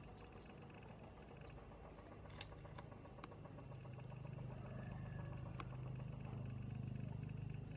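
A small engine running steadily at low revs. It grows louder over the second half and drops away right at the end, with a few faint clicks on top.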